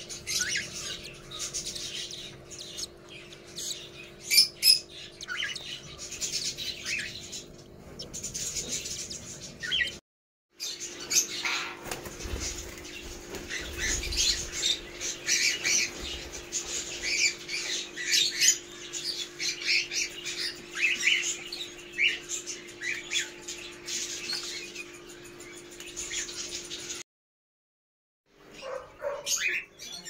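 Cockatiels and ring-necked parakeets chirping and squawking, many short high calls overlapping, with a steady low hum underneath. The sound drops out completely twice for a moment.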